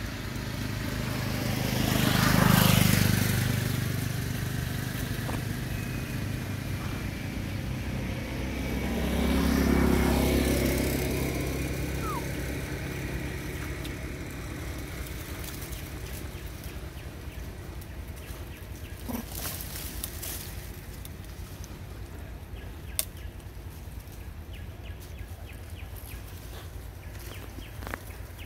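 Two road vehicles driving past one after the other, each swelling and then fading away. The first and loudest passes a couple of seconds in, the second about ten seconds in. A few sharp clicks come later.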